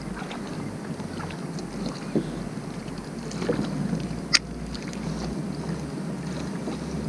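Kayak on the open sea: steady water and hull noise with wind on the microphone, and one sharp click about four seconds in.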